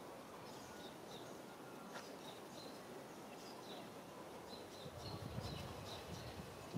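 Outdoor ambience of small birds chirping, short high notes repeated again and again over a steady hiss. A low rumble comes in about five seconds in.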